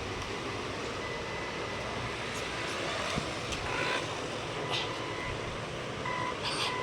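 Toy RC drift car switched on, giving a steady whirring noise, with a few faint short beeps and clicks near the end.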